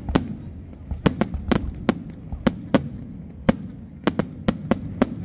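Display fireworks exploding: an irregular run of sharp bangs and cracks, about a dozen in five seconds, over a steady low rumble.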